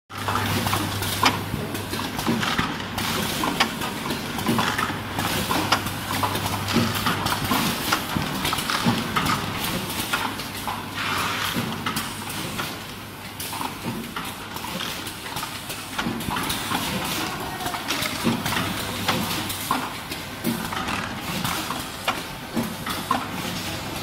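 Assembly-line clatter: conveyors and machinery running, with frequent irregular clicks and knocks of parts. A steady low hum runs under it for the first several seconds, stops, and returns for a few seconds later on.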